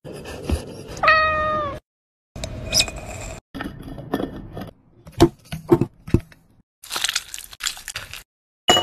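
A cat gives one drawn-out meow about a second in. Later come a few short taps and clinks, in short clips separated by abrupt silences.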